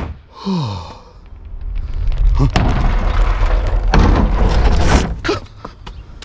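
Edited-in sound effect of a plastic wheelie bin crumpling: a brief falling glide, then about three seconds of loud low rumbling with crunching noise that dies away about five seconds in.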